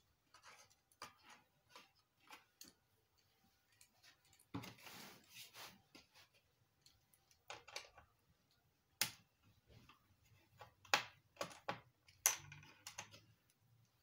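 Small screwdriver working on the screws of a flatbed scanner's circuit board, with plastic parts being handled: scattered clicks and light scraping, a longer scraping rustle about five seconds in, and a few sharper clicks later on.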